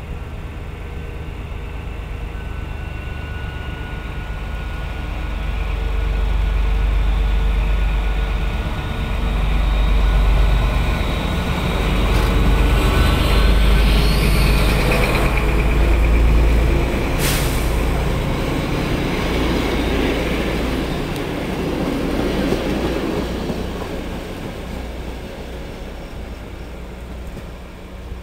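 Diesel locomotive hauling two passenger coaches through a station: a deep engine rumble builds as it approaches, then wheel noise peaks as it runs past close by, with one sharp knock. The coaches roll by after it and the sound fades away.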